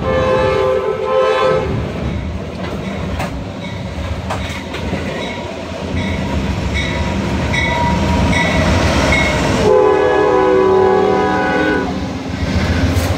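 Amtrak GE Genesis P42DC locomotive sounding its air horn as it approaches and passes: one blast of about two seconds at the start and a second blast of similar length about ten seconds in, over the steady rumble and wheel clatter of loaded coal hoppers rolling slowly past.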